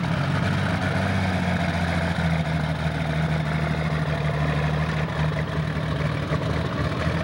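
Super Stock pulling tractor's engine running at low, steady revs as the tractor drives slowly along the track, the pitch holding even throughout.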